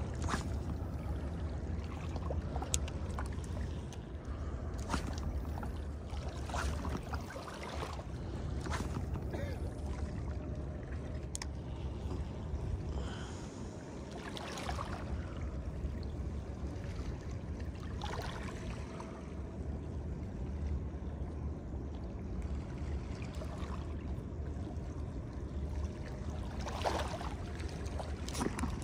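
A steady low rumble with moving water, and a few scattered brief clicks.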